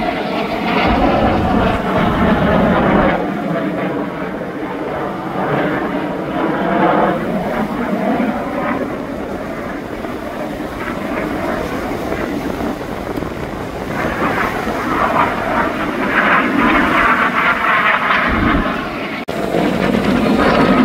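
Fixed-wing display aircraft flying past with engines running. The sound is loud and continuous, with a bending pitch in the first few seconds, eases off in the middle, and swells again near the end.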